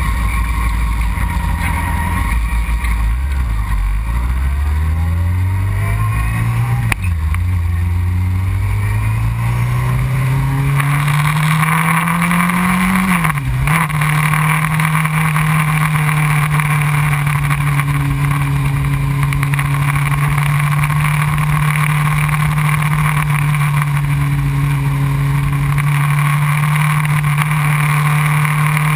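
2001 Honda CBR600 F4i's inline-four engine pulling away and accelerating, its pitch climbing then dropping sharply twice as it shifts up, about 7 and 13 seconds in. After that it holds a steady drone. Wind rush over the microphone grows as speed builds.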